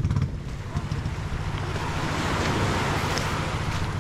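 Small waves breaking and washing over a pebble beach, the wash swelling to its loudest about two to three seconds in, over a steady low wind rumble on the microphone.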